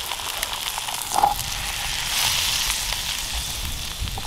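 Potato slices frying in foaming butter in a pan: a steady sizzle that swells about two seconds in, with a few light clicks.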